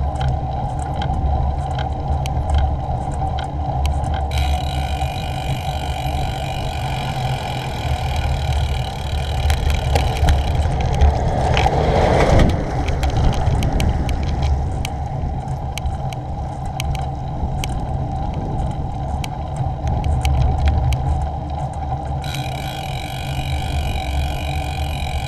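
Steady wind and road rumble on a bicycle-mounted action camera riding along a rough lane. About twelve seconds in, a tipper lorry passes close by, its noise swelling and then fading away.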